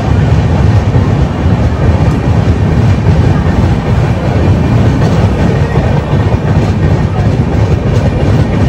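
Passenger train running as it pulls out of a station and gathers speed, heard from an open coach doorway: a loud, steady rumble of wheels on rails with some clickety-clack and wind noise.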